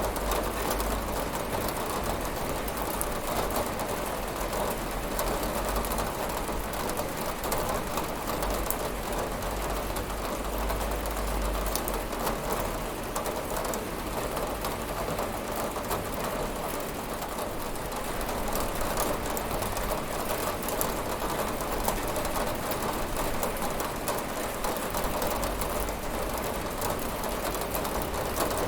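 Steady rain falling on a window and surfaces, with many small drop ticks over a dense hiss and a low rumble that swells and eases.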